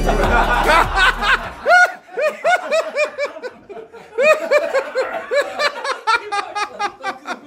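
Several people laughing together, a long run of quick 'ha-ha' laughs. Background music fades out in the first second and a half.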